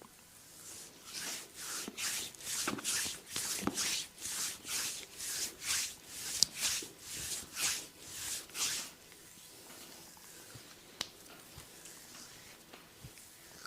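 Hands rubbing in quick, even massage strokes, about two rubs a second for some eight seconds, then stopping; after that only faint rustling and one sharp tick.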